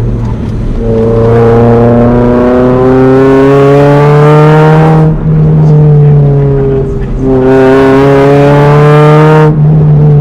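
Honda H23 2.3-litre inline-four engine pulling hard under acceleration, its pitch climbing steadily over several seconds. It is broken by brief lifts for gear changes about 5, 7 and 9.5 seconds in.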